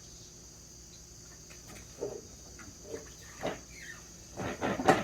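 A steady, high-pitched chorus of crickets chirring. Over it come several short knocks and clatters from about two seconds in, loudest near the end.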